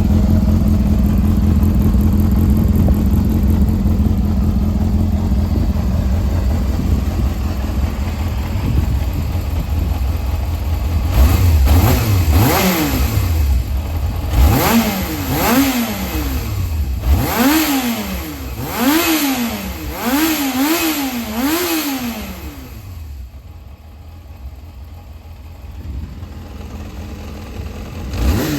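Yamaha XJR400's air-cooled inline-four engine idling steadily, then blipped about seven times in quick succession, each rev rising and falling back. It then settles to a quieter idle and is revved once more near the end. The carburettors have been freshly overhauled, and the seller states it runs with no abnormal noise.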